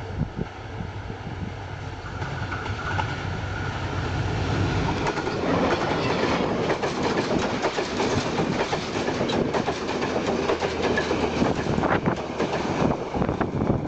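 Diesel-hauled express train passing close by: a low locomotive engine drone builds over the first few seconds, then from about five seconds in the wheels of the coaches clatter over the rail joints continuously.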